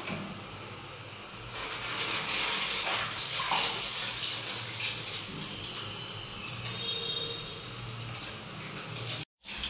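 Handheld shower head spraying water into a basin of soapy bathwater while a baby monkey is rinsed. The steady hiss of the spray starts about a second and a half in and cuts off abruptly near the end.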